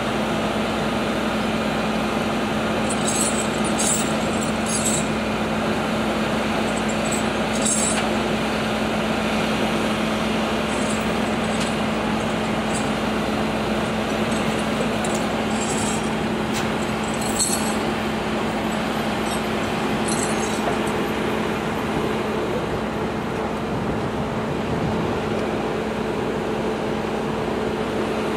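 Steady engine drone with a constant low hum from a fire engine and ambulance idling. A few faint short ticks sound now and then.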